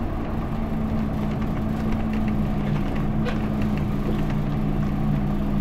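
2005 Isuzu Erga city bus's inline-six diesel engine running at a steady speed, heard from inside the passenger cabin, a low even hum holding one pitch throughout.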